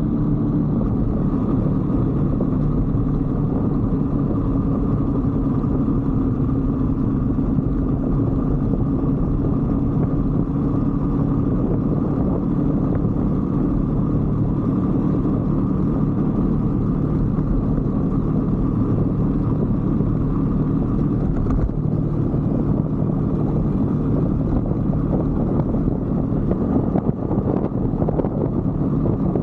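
125cc Brixton motorbike's single-cylinder four-stroke engine running at a steady road speed, with wind rushing over the microphone.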